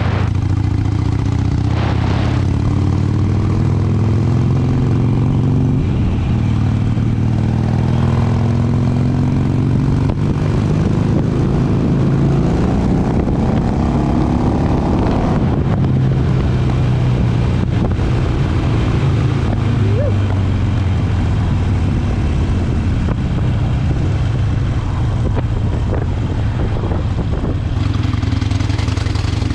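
Harley-Davidson V-twin motorcycle engine running while being ridden, its pitch climbing and dropping several times as the throttle is opened and closed.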